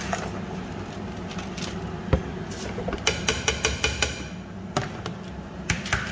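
Rice being tipped from a plastic bowl into a steel pot of boiling stock, with a heavy knock about two seconds in and a quick run of about six sharp taps about three seconds in as the bowl is knocked against the pot to empty it; more taps come near the end.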